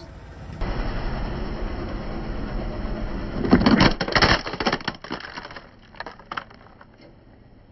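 A car tyre rolls over the asphalt and crushes a plastic toy military truck. About three and a half seconds in comes a run of loud cracks and snaps as the plastic breaks, followed by smaller scattered cracks as pieces snap off and fall. These die away by about six and a half seconds.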